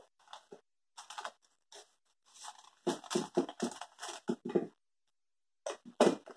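Fingers pressing buttered graham-cracker crumbs into a springform pan, making quick, irregular crunching and scrunching sounds that pause briefly about five seconds in.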